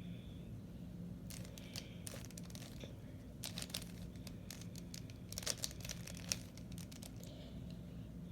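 3x3 Rubik's Cube being twisted by hand: bursts of quick plastic clicking and rattling as the layers turn, in clusters from about a second in, loudest a little past halfway. A low steady hum runs underneath.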